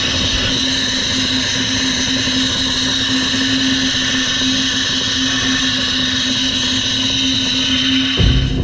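Abrasive blaster nozzle blasting grit against a sheet-metal dashboard panel to strip its paint: a loud, steady hiss of air and media with a steady hum underneath.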